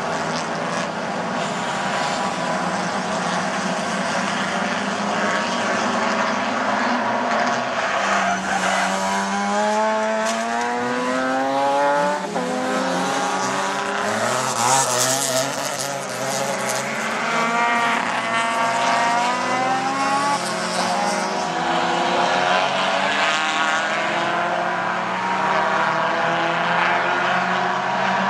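Several race car engines accelerating hard, their pitch climbing through the gears and overlapping as the cars pass. A harsh burst of noise about fifteen seconds in, with tyres squealing.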